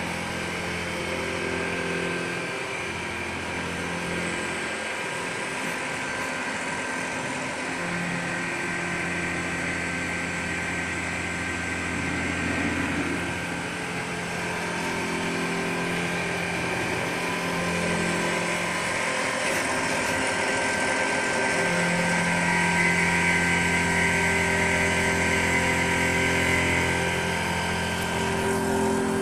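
Macpower Turn O' Mill 200 CNC turn-mill centre running a machining cycle. Its steady mechanical hum has low tones that change pitch every few seconds, over a band of hiss that grows louder in the last third and drops off shortly before the end.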